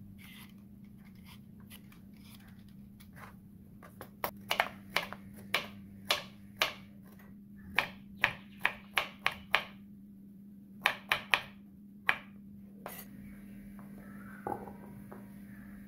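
Kitchen knife chopping carrots on a wooden cutting board: a run of sharp knocks, about two a second with some quicker bursts. Before it, faint scraping of a vegetable peeler on carrot, and near the end a light ringing clink of carrot pieces going into a glass bowl.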